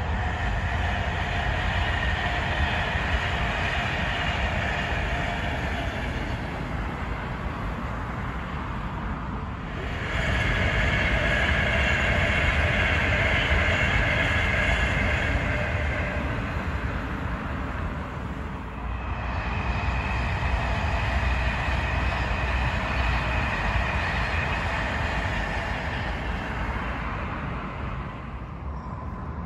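Passenger train passing at speed on the main line: a continuous rumble and rush of wheels on rails with some steady whine. The sound swells and eases in three waves, then fades as the train clears near the end.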